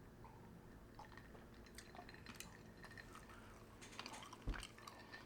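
Faint close-miked chewing and wet mouth clicks, with one soft low thump near the end.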